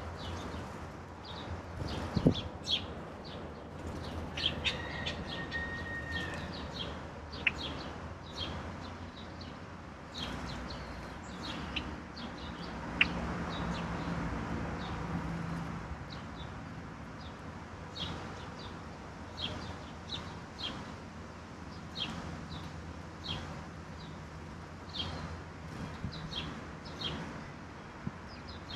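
Songbirds calling: many short, sharp chirps throughout, with one held whistled note about five seconds in. A single sharp knock sounds about two seconds in.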